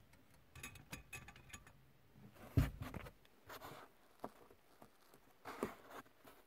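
Fingers handling a small plastic wiring connector and its wires: faint rustling and a run of small clicks, with a louder bump about two and a half seconds in.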